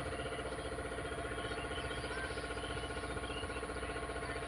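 An engine running steadily at an even speed, a pulsing hum with many evenly spaced overtones.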